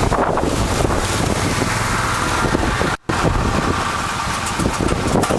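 Hurricane-force wind buffeting the microphone, a loud rushing noise that breaks off for an instant about three seconds in.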